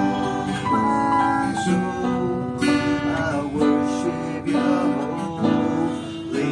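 An acoustic guitar strumming and picking together with a Techno T9690i portable keyboard playing a melody.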